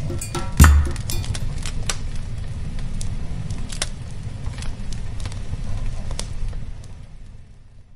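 Fire crackling over a low, steady rumble, with irregular sharp pops and one loud thump about half a second in. It fades out near the end.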